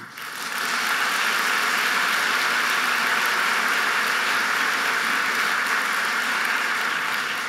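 Audience applauding, swelling within the first second and holding steady, then beginning to fade near the end.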